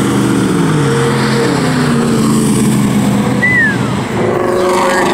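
Engines and exhausts of passing cars, one pitched exhaust note dropping as it eases off and then holding steady. After a brief break about four seconds in, another engine note comes up, rising in pitch.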